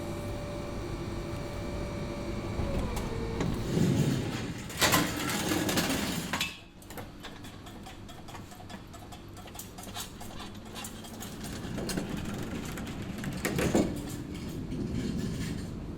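Machinery: a motor hum whose pitch steps down and fades about three seconds in, followed by irregular clunks and clicks, the loudest around five seconds in and again near the end.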